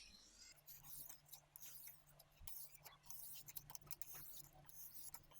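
Faint, intermittent scraping of an oiled 600-grit Lansky hone being swept along a kitchen knife's edge, a few soft strokes with pauses between them.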